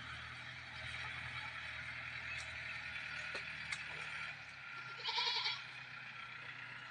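A short, wavering animal call about five seconds in, over a steady background hum with a few faint clicks.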